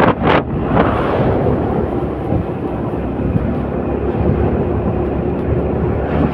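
Heavy wind rumble on the microphone with steady road noise from travelling in a moving vehicle, with a few brief whooshes in the first second.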